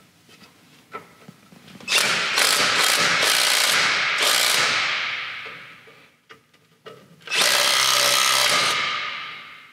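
Cordless Hercules impact driver hammering on a brake wheel cylinder bolt in two long bursts, the first about two seconds in, the second near the end; the bolt twists off under it.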